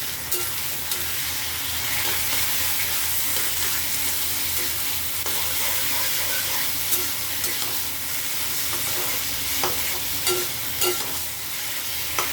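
Boiled taro leaves sizzling in hot oil and spice paste in a kadai while being stirred, with the steady hiss of frying and a few sharp clicks of the spatula against the pan, several of them a little after the middle and near the end.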